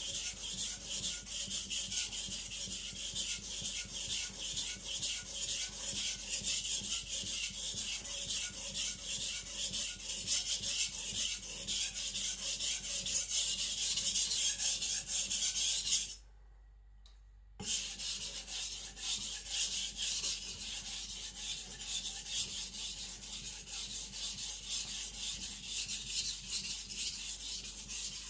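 Carbon-steel (Aogami) gyuto blade being stroked back and forth on a sharpening water stone, a rhythmic grinding scrape while the edge is thinned and a burr raised. The strokes stop for about a second and a half a little past halfway, then start again.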